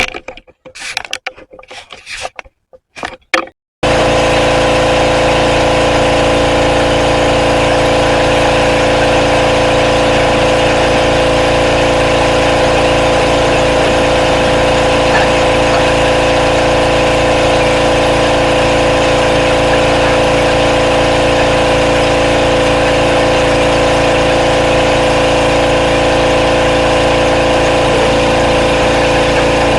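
A few short clicks and knocks, then about four seconds in a pressure washer starts up abruptly and runs steadily with a constant drone and hiss, blasting degreaser off the front of an engine block.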